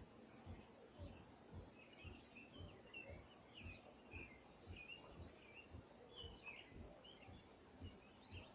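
Faint songbird chirping: many short, quick chirps from small birds. Under it runs a soft low thump, about twice a second.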